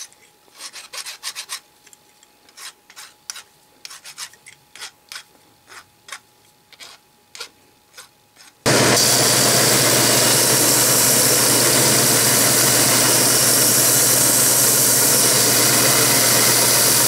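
A hand file rasping in short, uneven strokes as it deburrs a small aluminium vise body. About halfway through, a belt sander cuts in loud and steady while the end of the vise is pressed against the belt to clean it up.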